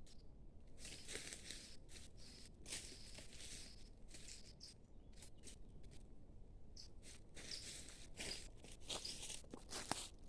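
Irregular rustling and crunching of someone handling things or stepping on the forest floor, with a sharp click near the end.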